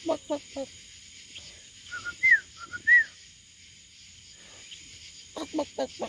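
Crickets chirring steadily, with short bird calls over them: a quick run of four clucks at the start, two thin rise-and-fall whistled notes in the middle, and another run of clucks near the end.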